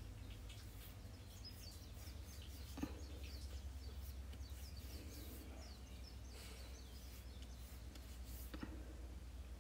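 Faint soft patting and rubbing of fingertips spreading cream on the face. There are scattered short high chirps that fall in pitch, a steady low hum, and two sharper ticks, about three seconds in and near the end.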